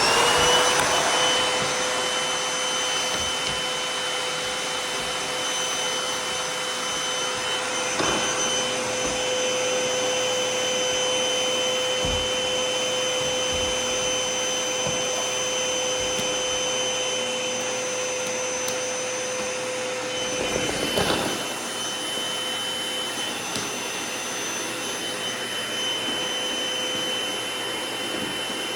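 Sanitaire vacuum cleaner running: its motor spins up to speed at the start, then runs with a steady whine and rush of air. About two-thirds of the way through there is a brief louder disturbance, and the pitch of the whine shifts.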